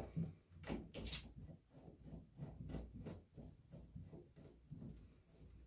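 Faint, irregular scraping and clicking of a ridged metal shower-hose connector being hand-threaded onto a chrome shower-arm bracket, fingers rubbing on the fittings, with a couple of louder clicks about a second in.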